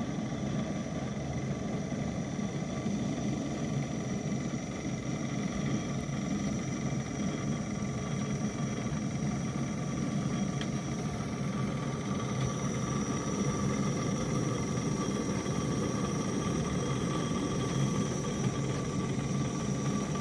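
Portable gas camping stove burner running with a steady, even roar.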